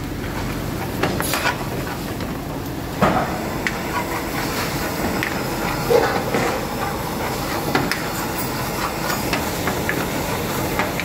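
Steady hissing roar of a strong gas burner flame under a pan of chicken curry, with the curry sizzling and a few sharp metal clinks, the loudest about three and six seconds in.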